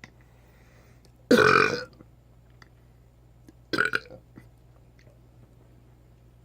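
A man burping twice after chugging a can of carbonated soda: a long, loud burp a little over a second in, then a shorter one about four seconds in.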